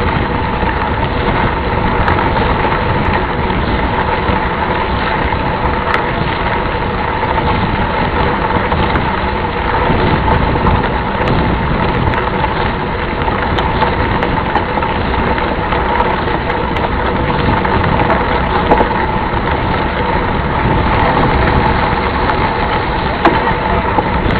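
Steady rumbling noise of a mountain bike rolling along a trail, with wind on the microphone and a faint steady whine throughout.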